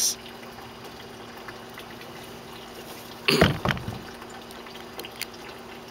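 Steady running water and a low hum from a backyard pool's pump and water circulation, with one short, louder noise about three and a half seconds in.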